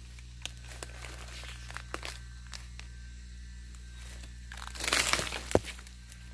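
Dry rustling and crinkling with scattered sharp clicks. A louder burst of rustling comes near the end, followed by a single sharp snap, over a steady low hum.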